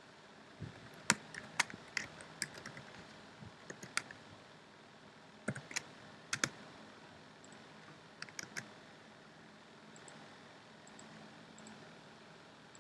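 Computer keyboard typing in short bursts of a few keystrokes, with pauses of a second or more between the bursts.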